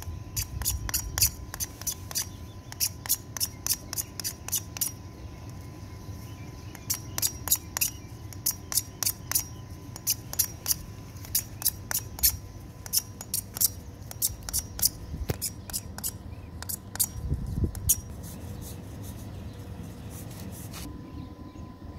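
Rapid rasping strokes of a metal tool scraping the inside of a plastic pipe socket, about two to three a second, roughening it before solvent cementing. The strokes pause briefly near a quarter of the way in and stop shortly before the end.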